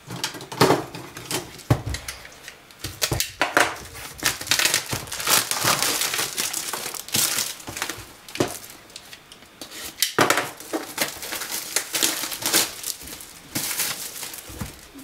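Wrapping on a packet of envelopes being cut open with a craft knife and pulled off: irregular crinkling and rustling with scattered clicks and knocks.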